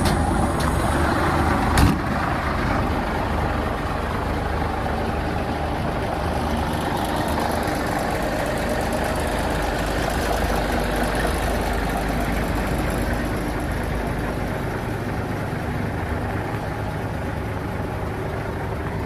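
Big cam Cummins diesel in an International heavy wrecker idling steadily. The cab door shuts with a single thump about two seconds in.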